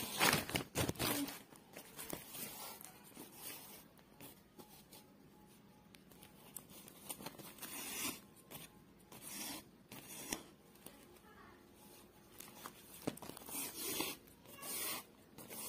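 Needle and yarn drawn through a woven polypropylene sack: intermittent rasping and crinkling of the plastic weave as the thread is pulled, loudest about a second in and in several strokes near the end.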